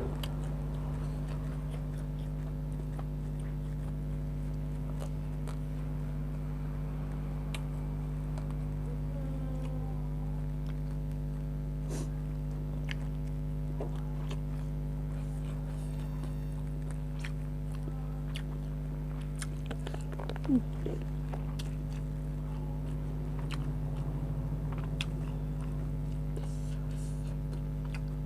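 Close-up chewing and biting of grilled chicken with skin: scattered wet clicks and smacks of eating. A steady electrical hum runs underneath, and there is one brief louder sound about two-thirds of the way through.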